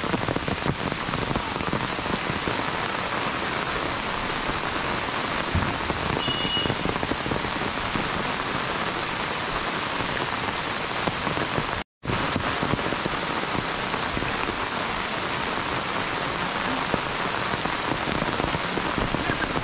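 Heavy monsoon rain falling steadily, pattering on an umbrella overhead and on foliage and a wet brick path. The sound cuts out for a split second about twelve seconds in.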